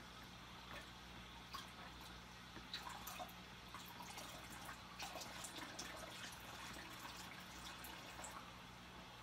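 Water pouring from a tilted plastic tub into an aquarium, heard as faint scattered drips and small splashes from about a second and a half in until near the end, over a steady low hum.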